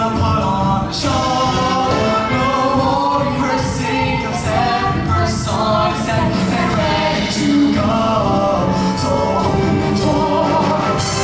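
A mixed-voice show choir sings in harmony over loud instrumental accompaniment with drums, in a continuous stretch of a song.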